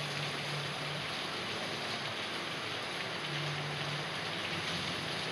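Heavy rain falling steadily, an even, continuous hiss with no thunder.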